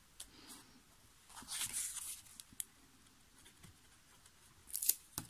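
Paper and cardstock being handled and slid over a craft mat: soft rustles and a few light ticks, with a brighter rustle and a click near the end.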